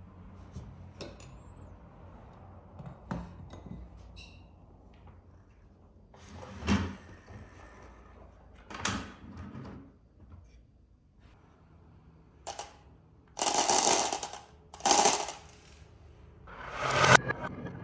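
Marbles rolling and clattering down a marble run: scattered single clicks at first, then several short rattling runs, louder and closer together near the end.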